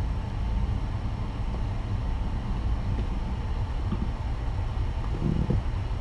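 Steady low rumble of room background noise, with a couple of faint short sounds about five seconds in.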